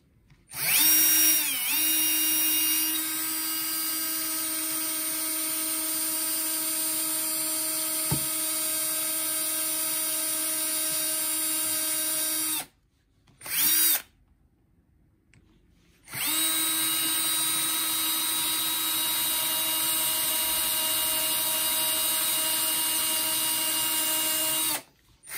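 Bosch cordless drill with a small 2–2.5 mm bit, pre-drilling pilot holes for self-tapping screws. It runs in two long steady whines of about twelve and nine seconds, with a brief blip between them, and its pitch dips briefly soon after it starts as the bit bites.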